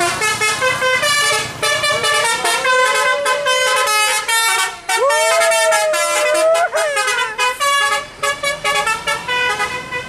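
Tour bus 'basuri' telolet horn playing a fast melody of quick-changing musical notes. The tune slides up and down in pitch about halfway through.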